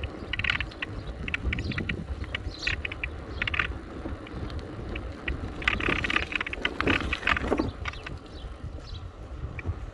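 Bicycle being ridden over a cracked, uneven path, rattling in short spells of rapid clicks that are loudest about six to eight seconds in, over a steady low rumble of wind on the microphone.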